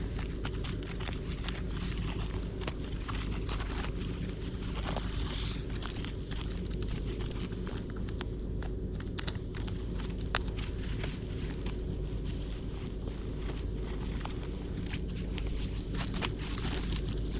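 Rustling and crinkling of material being handled, with scattered small clicks and a brief louder knock about five seconds in, over a steady low hum.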